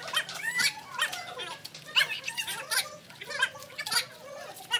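Children's high voices calling out, squealing and giggling in short overlapping bursts during a playground game.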